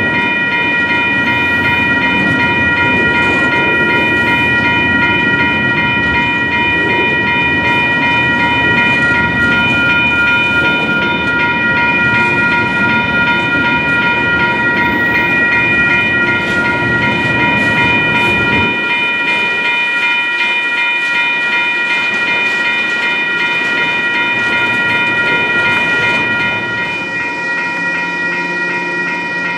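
Double-stack container train rolling slowly past, its wheels rumbling and clacking on the rail, under the steady electronic ringing of grade-crossing bells. About two-thirds of the way through the train rumble drops away abruptly, leaving the bells, and a low steady hum comes in near the end.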